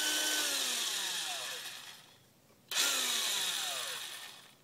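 Porter-Cable 840 9.6-volt cordless drill, running on an 11.1-volt lithium polymer RC battery, spun up twice in high gear with no load. Each short run is a high whine that falls in pitch as the motor coasts down after the trigger is let go, with a brief pause between the two.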